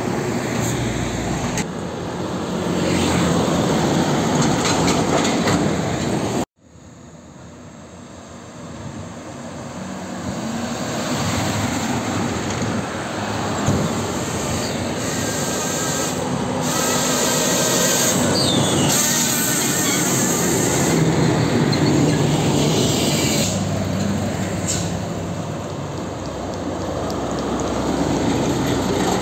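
Heavy diesel trucks, among them dump trucks and a concrete mixer truck, driving past close by one after another: engine drone and tyre noise swelling and fading as each goes by. The sound cuts out abruptly about six seconds in and fades back up.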